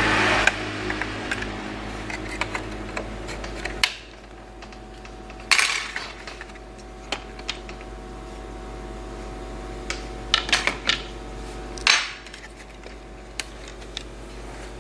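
Scattered small clicks and knocks of laptop parts and the motherboard being handled on a workbench, over a steady low hum.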